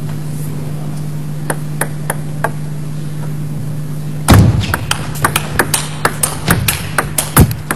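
Table tennis ball clicking: a few single bounces, then about four seconds in a fast rally of sharp ticks off bats and table, several a second, with two heavier thuds among them, over a steady low hum.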